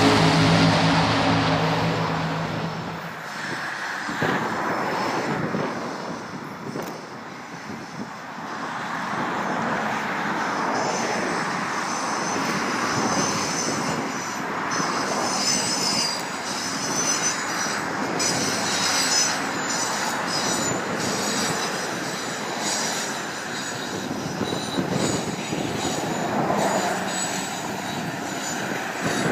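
Amtrak diesel passenger train running past across open country, a steady rush and rumble of the locomotive and its cars' wheels on the rails. In the first few seconds a pitched hum fades out.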